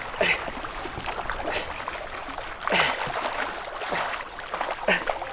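Sea water slapping and splashing against a plastic kayak hull over steady water noise. There are a few sharper splashes, the biggest a little past the middle.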